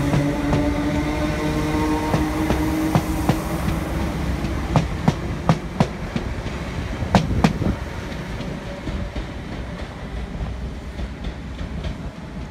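Northern Class 319 electric multiple unit pulling away from the platform. Its traction motors hum in several steady tones that fade after three or four seconds. Then the wheels clack sharply over rail joints as the carriages pass, and the sound dies away.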